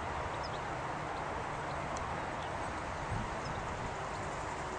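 Airbus A320's jet engines running with a steady, even noise as the airliner rolls along the runway after touchdown.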